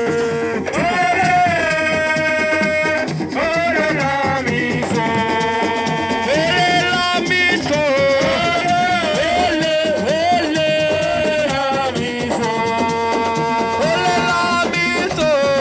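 Music: a voice singing long, held notes over a steady shaker rattle.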